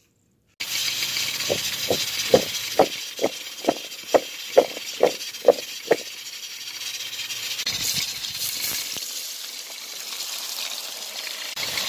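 Potato sticks deep-frying in hot oil, a loud steady sizzle that surges briefly about eight seconds in. Between about one and a half and six seconds in, a run of about eleven evenly spaced knocks, a little over two a second, sounds over the sizzle.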